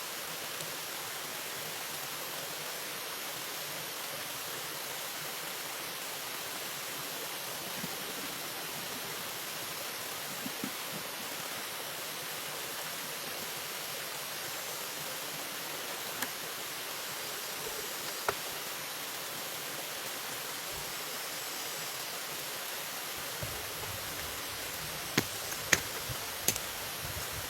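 Steady rushing of flowing water, like a forest stream, with a few sharp knocks, the loudest a cluster of three near the end.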